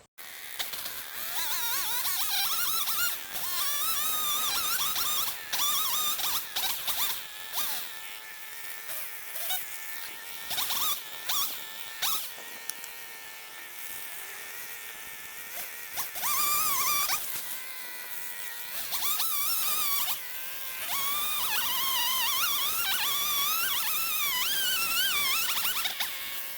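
Chainsaw running while cutting down a pin oak tree, its buzzing pitch rising and falling as it revs and loads up in the cut, quieter for a stretch in the middle.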